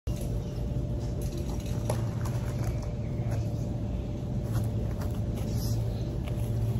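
Steady low hum over a constant background rush, with a few faint short clicks.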